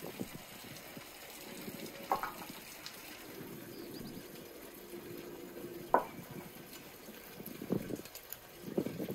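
A knife cutting and scraping boiled lamb off the bone over a large metal tray, with two sharp metallic clinks about two and six seconds in and soft knocks of meat landing on the tray near the end, over a steady background of running water.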